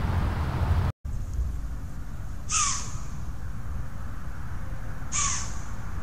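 Two short, high-pitched deer calls about two and a half seconds apart, each dropping in pitch.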